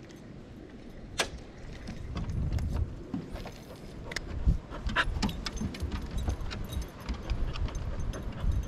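Scattered light clicks and small metallic jingling from handled gear, with a sharp click about a second in and a cluster of clicks around four to five seconds in.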